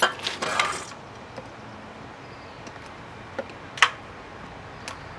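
Plastic vacuum hose end being pushed and twisted into the socket of a pet grooming vacuum: a click and a brief scrape in the first second, a few small ticks, then a loud sharp snap a little under 4 seconds in as the connector seats.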